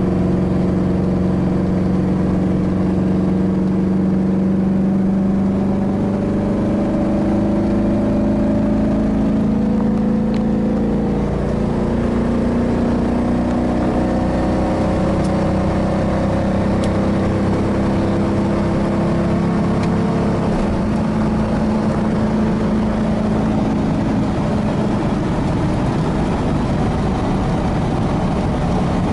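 Small-block Chevy V8 of a 1986 Chevy K-10 pickup pulling steadily at road speed, heard from inside the cab with road noise. About eleven seconds in, the engine note eases down a little.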